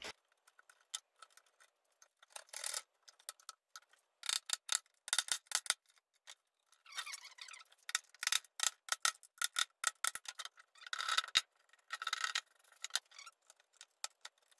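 Utility knife cutting and scraping the old gasket out of an aluminium window sash channel: an irregular run of short scraping strokes with small clicks.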